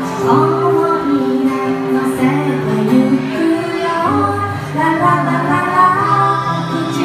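A woman singing a melody over strummed ukuleles, played live by a small acoustic group.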